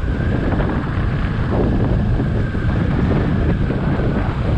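Steady wind buffeting on the microphone of a moving motorcycle, with the bike's engine running underneath.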